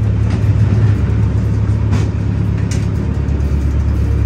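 Small passenger ferry's engine running with a steady low drone, with a few faint knocks on the deck.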